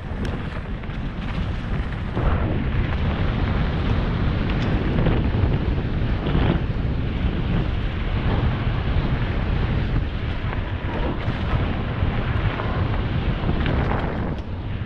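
Wind buffeting an action camera's microphone as a mountain bike descends a dirt singletrack, with a steady low rumble and occasional knocks and rattles of the bike over the trail.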